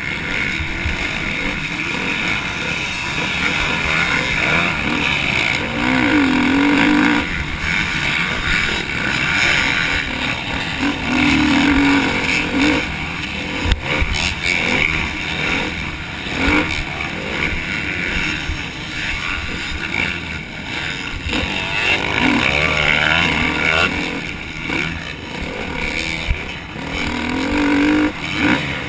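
Motocross dirt bike engine at race pace, revving up and backing off again and again as the rider works the throttle and gears, under a steady rush of wind on the helmet-mounted camera. A single sharp knock sounds about fourteen seconds in.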